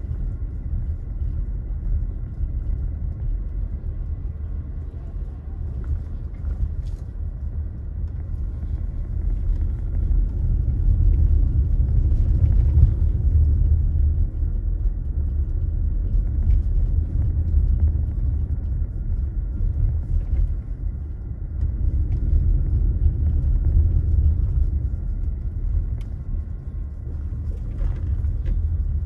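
Low, steady rumble of a car driving, growing louder for a few seconds around the middle and again later.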